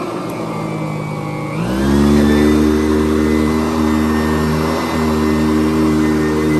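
Sanitaire SC889B two-speed upright vacuum cleaner running. Its motor note rises sharply about one and a half seconds in, then runs steady and loud.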